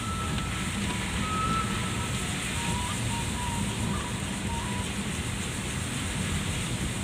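Steady in-cabin road noise from a vehicle driving on a wet road in rain: a low engine and tyre rumble under the hiss of rain and tyre spray. A few faint, thin, high tones come and go over it.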